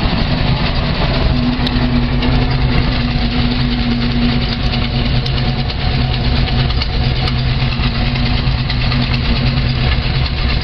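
Carbureted car engine idling steadily with the choke off, still cold and warming up after a cold start.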